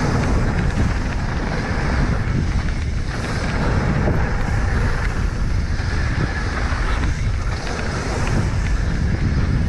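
Wind buffeting the microphone over the steady rumble of mountain bike tyres on a dry, dusty dirt trail during a fast descent, with a few faint rattles.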